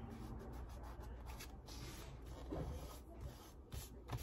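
Hands rubbing and smoothing damp collage paper flat on a painting: soft, scattered rubbing and rustling, with a small tap near the end.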